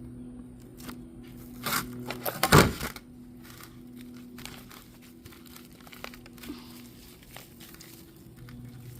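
Aerosol shaving cream can spraying foam in a few short hissing spurts about two to three seconds in, followed by faint scattered crackles, over a steady low hum.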